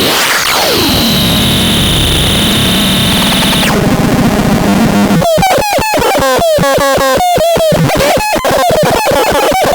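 Synthesizer making a harsh, noisy electronic texture: a high steady tone over hiss with a pitch sweep falling away. About five seconds in it switches to a rapidly chopped, stuttering tone whose pitch jumps about.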